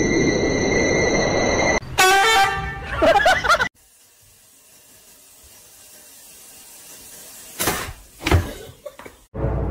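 Music with steady high tones, then about two seconds in a loud honking horn-like blare lasting over a second. Quiet follows, then a couple of sharp knocks and a clatter near the end.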